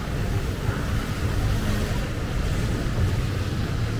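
Steady rain hissing on a wet city street, with wind rumbling unevenly on the microphone.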